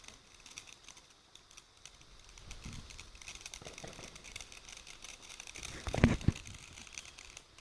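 Firework crackling with rapid small pops, and a few louder bangs about six seconds in.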